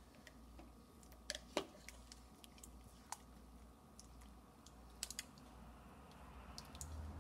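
Faint, scattered clicks and taps of a serving utensil knocking against a slow cooker's stoneware insert while a cooked pot roast is lifted out, over a low steady hum.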